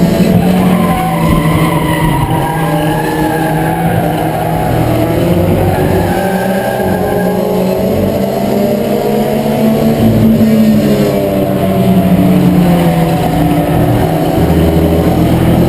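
Ford Escort race car's four-cylinder engine running hard, heard from inside the cockpit; the revs drop about ten seconds in and then climb back.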